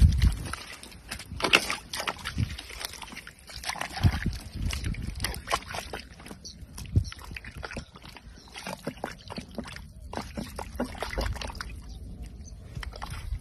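A hand digging and pushing into wet mud at an eel hole: irregular wet squelches and sloshes, many short strokes with no steady rhythm.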